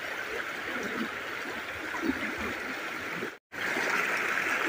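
Floodwater rushing over a road, a steady rush of flowing water. It cuts out for a split second about three and a half seconds in, then resumes slightly louder.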